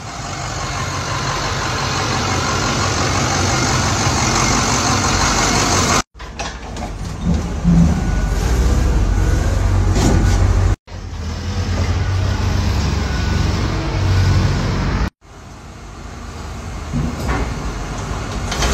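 Truck and forklift engines running during pallet unloading at a loading dock, heard as steady engine rumble and noise in several short clips. The sound breaks off abruptly three times.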